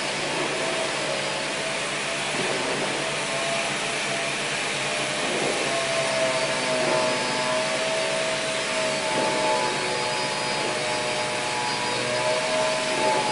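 Workshop machinery running steadily: a loud rushing hiss with a whine that wavers slightly in pitch.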